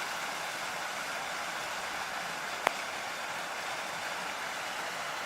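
Steady rushing of a rain-swollen creek and its small waterfall. A single sharp click sounds about halfway through.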